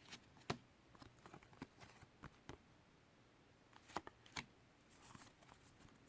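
Faint clicks and light rustling of baseball cards being handled and flipped through by hand, with sharper ticks about half a second in and twice about four seconds in.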